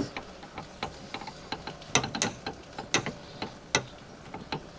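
Irregular metallic clicks and taps of a T-handle socket wrench turning on a nut inside the tailgate, tightening the rear spoiler's fastening. A few sharper clicks stand out about two and three seconds in.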